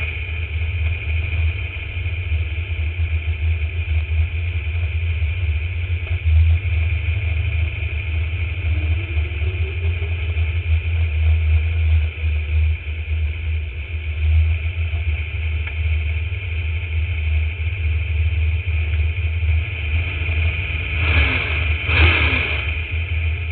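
Drag race car's engine idling with a deep, steady rumble, heard from onboard while the car creeps toward the starting line. Two brief falling tones cut through near the end.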